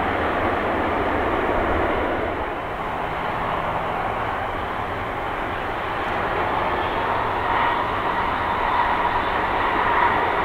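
Airbus A340-200's four CFM56 turbofan engines at taxi power: a steady jet rumble with a faint whine that comes in about seven seconds in.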